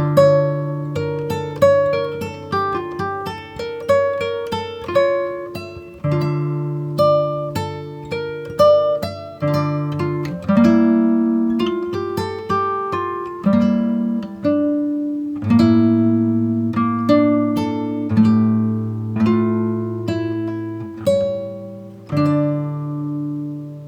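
Background music: acoustic guitar playing plucked and strummed notes at a steady pace.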